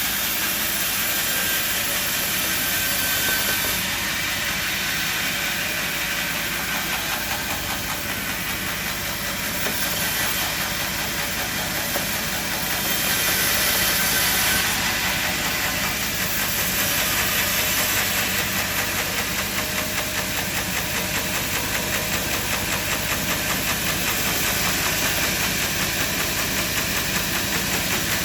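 Sawmill machinery running: an engine hum under a steady hissing saw noise, with a regular pulsing from about halfway through.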